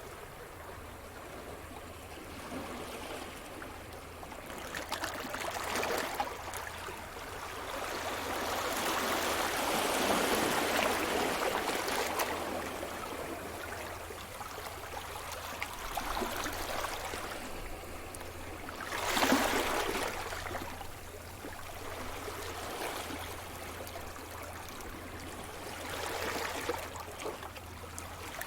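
Sea surf: waves washing onto the shore in slow swells of rushing water, with one sharper wave breaking about two-thirds of the way through.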